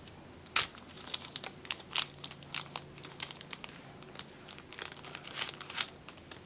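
Small plastic Ziploc bag crinkling as it is handled and opened, a run of irregular sharp crackles.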